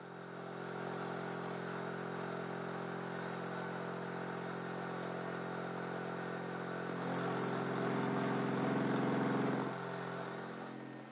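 Subwoofer rig driven with a 45 Hz test tone, heard as a steady buzzing drone of overtones, while the small AC gear motor it powers runs. About seven seconds in the drone grows louder and rougher for a couple of seconds, then it fades near the end.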